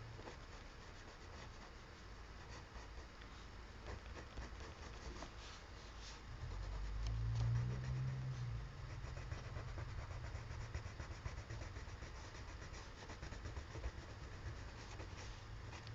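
Faint scratching of a colored pencil stroking across paper, over a steady low hum. A low rumble swells and fades about halfway through.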